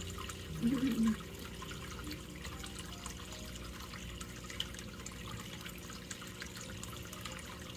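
Steady trickle of water circulating in a fish spa pool, over a low steady hum. A short murmur-like sound rises briefly about a second in.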